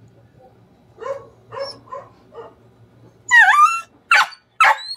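Small terrier-type dog giving a few soft short whines and yips, then one loud howling yelp that bends down and back up in pitch, followed by two sharp barks near the end.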